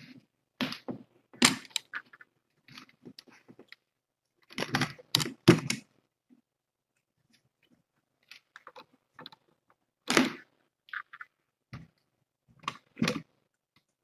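Irregular handling noise near the microphone: a scatter of short crunches, knocks and rustles, loudest about a second and a half in, around five seconds in, and again near ten and thirteen seconds.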